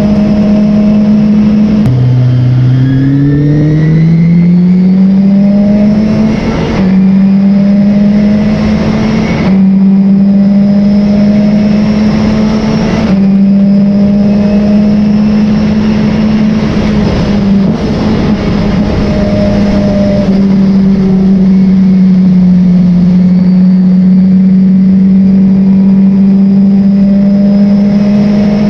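Racing car's engine running hard at high revs, heard from inside the car. About two seconds in, the revs drop sharply, then climb steadily back up over the next four seconds as the car accelerates, with a few brief sharp breaks in the sound further on.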